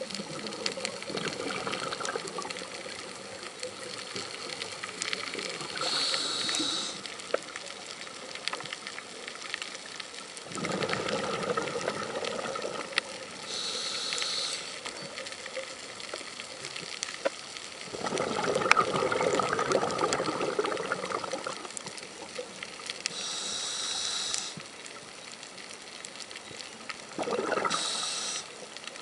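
Scuba diver breathing through a regulator, heard underwater: a short high hiss on each inhale, then a longer burst of bubbling as the exhaled air vents, repeating in a slow cycle several times.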